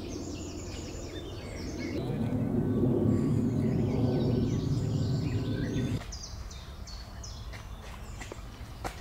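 Small birds chirping and twittering over a low outdoor background murmur; the murmur swells louder about two seconds in and cuts off abruptly about two thirds of the way through.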